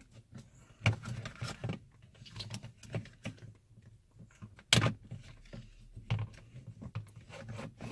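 Plastic trim cover behind a rearview mirror being wiggled loose by hand: scattered plastic clicks and rattles, with one loud snap a little under five seconds in.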